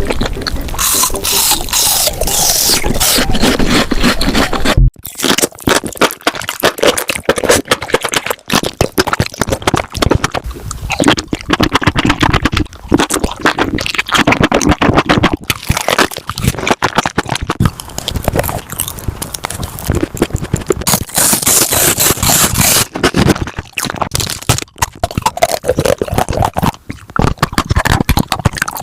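Close-miked mukbang eating sounds sped up, a dense run of crunching, crackling and scraping bites and chews, with a sudden cut to a new clip about five seconds in.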